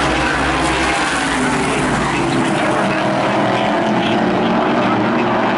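Modified race cars' V8 engines running on the track, heard from the grandstand as a loud, steady drone. About halfway through, one engine note rises as a car accelerates.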